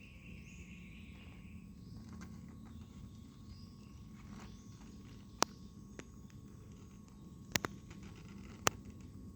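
A low steady background hum with a few sharp clicks, about five, in the second half, two of them close together.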